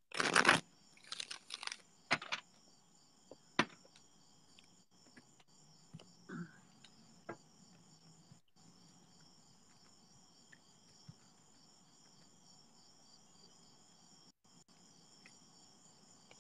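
Tarot cards being shuffled by hand for about two seconds, followed by a few soft clicks of the cards. Under it runs a faint, steady, pulsing high chirring of crickets.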